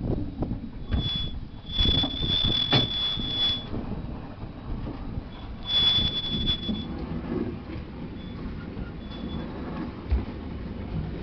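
Steel wheels of a goods train squealing against the rails as it runs downhill, a thin high tone that comes and goes in bursts, longest for about two seconds near the start and again around six seconds in. Under it, a steady rumble of wheels on track and a few sharp clanks from the wagon couplings.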